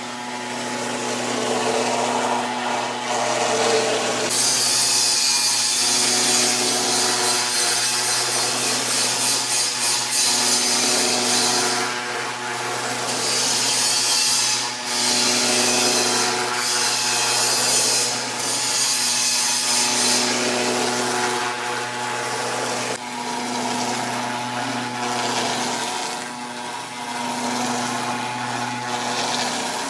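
CNC router carving: a steady spindle hum under the cutting noise of the bit. There are several long stretches of loud hissing cutting between about four and twenty seconds in.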